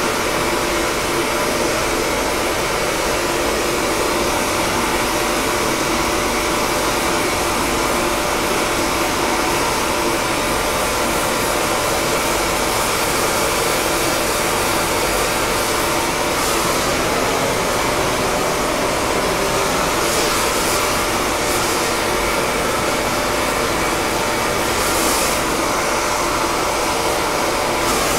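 Gas welding torch flame hissing steadily as it is played on a bell, heating the metal for silver brazing of its cracks.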